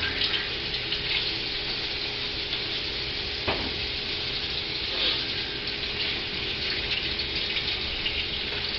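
Kitchen tap running steadily into the sink while potatoes are washed under it, with a couple of brief knocks.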